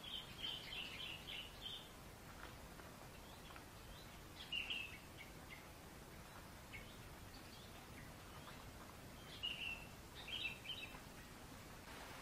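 A bird chirping in short runs of quick high notes, three times: at the start, about four and a half seconds in, and again around ten seconds in, over faint steady outdoor background noise.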